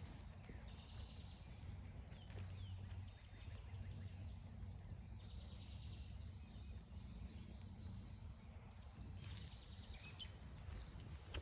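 Songbirds singing faintly: a short rapid trill repeats three times, about every four seconds, and another bird sings higher about a third of the way in. A steady low rumble and a few soft clicks sit underneath.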